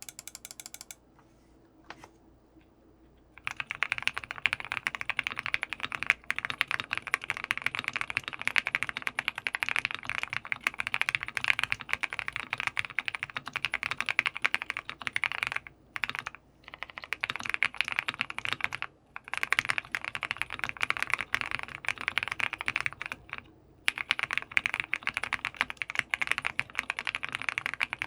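Jelly Epoch custom mechanical keyboard with a PC plate, Krytox-lubed TECSEE Tiffany Blue switches and CRP R4 keycaps, being typed on fast and continuously. The typing starts about three seconds in and pauses briefly three times.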